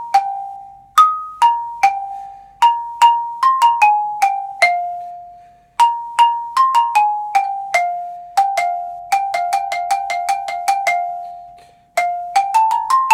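A mallet keyboard instrument playing a melodic passage: single struck notes that each ring out briefly, in an uneven rhythm, with a brief break about five seconds in, a quick run of notes around nine to eleven seconds, and another short break just before the end.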